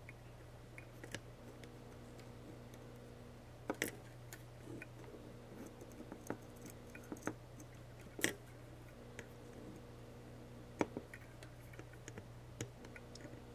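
Faint, scattered clicks and light taps of hand-soldering small through-hole component leads on a circuit board: the soldering iron tip and solder wire touching the leads and board, with a few sharper ticks spread through. A steady low hum sits underneath.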